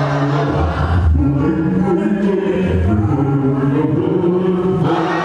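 A group of voices singing a slow hymn-like chant together in long held notes, with low notes sounding underneath.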